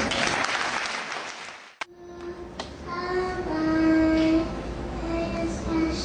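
Applause fading out, then a group of young children singing, with held notes, into a handheld microphone.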